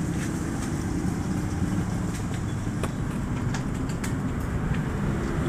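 Steady low rumble of passing road traffic, with a few faint ticks and clicks.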